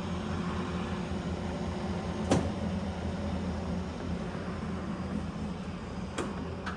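Mori Seiki MS-2000G heavy-duty engine lathe running, a steady machine drone, with two sharp clicks about four seconds apart.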